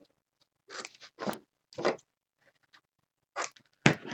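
Cardstock being handled and worked: a few short, crisp paper rustles, spaced about a second apart, with a louder knock near the end.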